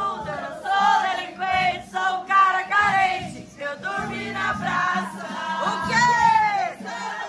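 Recorded music with a group of women singing along.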